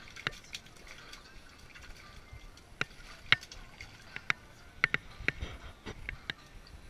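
A freshly landed fish flopping on the ice, giving scattered, irregular sharp taps and slaps.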